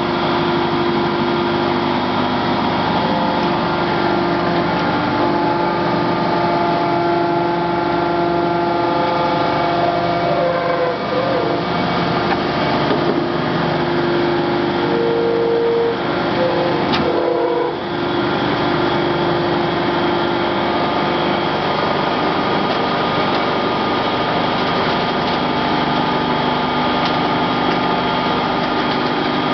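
Becker lid-type scrap baler's hydraulic power unit running, a steady machine hum with several whining tones that shift in pitch partway through as the press works. A single sharp click sounds about 17 seconds in.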